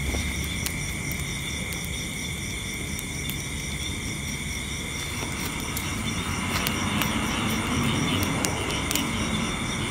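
A ring of burning straw and dry grass crackling, with scattered sharp pops over a low rumble of flame. Insects trill steadily in the background.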